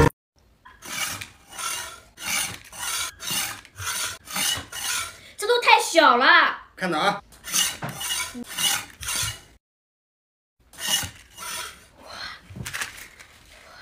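Repeated rasping scrape strokes, about two a second, as something is rubbed back and forth on a wooden cutting board, with a short pause about two-thirds of the way through. About six seconds in, a girl lets out a wavering "ooh".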